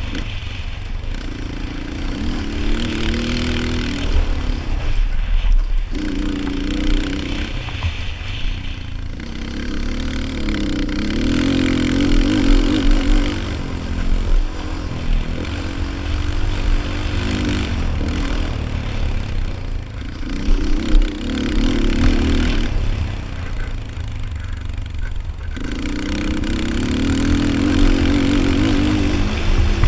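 Yamaha Raptor 250 quad's single-cylinder four-stroke engine running hard round a motocross track, revving up and backing off over and over, with several brief drops as the throttle is shut. A steady low rumble of wind on the microphone sits underneath.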